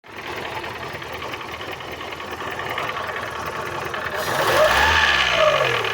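Fiat Fire 1.0 engine running with a steady, rapid mechanical clatter, the strange noise that appeared after its cylinder head was replaced. About four seconds in it is revved once, the pitch rising and falling back.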